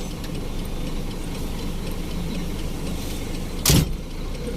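Truck engine running steadily, heard from inside the cab, with faint ticking over it. A single sharp thump about three and a half seconds in.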